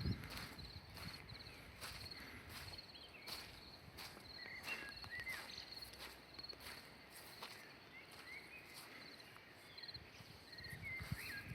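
Faint natural ambience: an insect, cricket-like, chirping in short, high, rapidly pulsed trills that repeat about every second. Under it come a few short bird calls and soft footsteps on a path.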